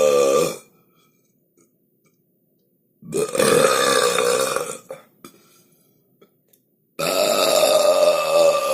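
A person burping, three long drawn-out burps with silent gaps between them: one trailing off just after the start, one of nearly two seconds about three seconds in, and a third starting near the end and still going.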